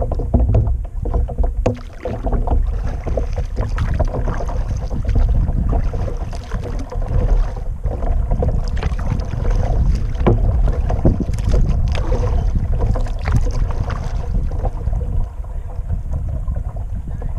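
Kayak paddle strokes: the blades of a double-bladed paddle dipping into and lifting out of the water, with splashes and drips at uneven moments. A steady low wind rumble on the microphone lies under them.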